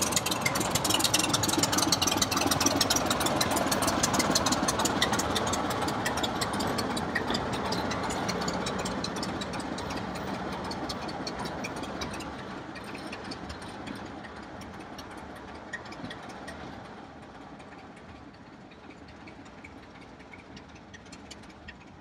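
BR Class 24 diesel locomotive's Sulzer six-cylinder engine running as the locomotive pulls away, with a rapid clatter of clicks. The sound fades steadily as it draws into the distance.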